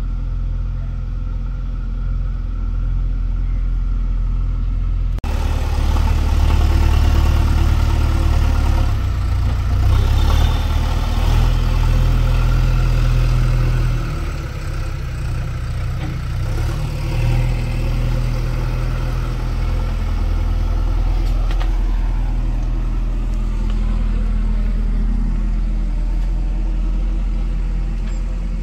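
Heavy diesel machine's engine running continuously, its pitch and load shifting up and down. There is an abrupt break about five seconds in, after which it is louder.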